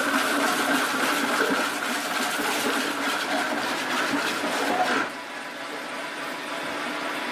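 Sawmill machinery running with a steady whine over loud noise, which drops away about five seconds in to a quieter machine hum.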